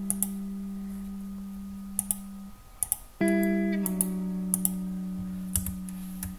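Background music: guitar chords, each struck and left to ring and fade, with a new chord a little after halfway. Several faint computer mouse clicks are scattered over it.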